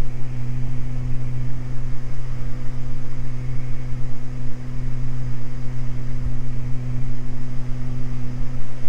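Beechcraft G58 Baron's twin piston engines and propellers droning steadily in flight, heard from inside the cockpit: an even, unchanging hum with a few steady low tones.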